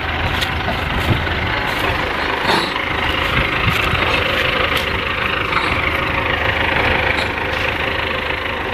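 Belarus 510 tractor's diesel engine running steadily and loud, with a low rumble and a few sharp clicks over it.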